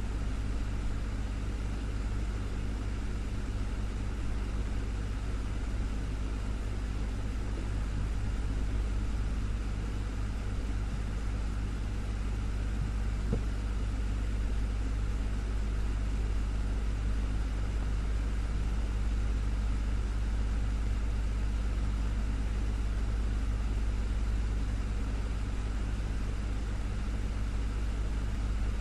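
Desktop electric fan running steadily: a constant low motor hum under an even rush of moving air.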